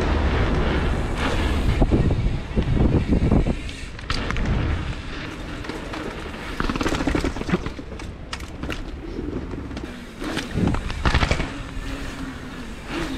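Mountain bike ridden hard over rough ground, heard on an action-camera microphone: a rumble of wheels and wind buffeting, broken by several sharp knocks and thuds from the bike and its wheels hitting the ground.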